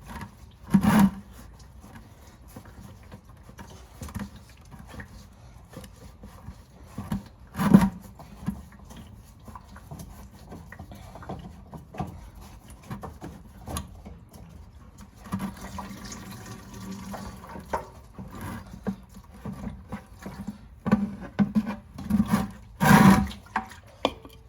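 Hands-on work at a diesel fuel filter housing: scattered clicks and clunks of the housing, filter and tools being handled. There are louder knocks about a second in, about eight seconds in and near the end, and a few seconds of liquid-like noise around the middle.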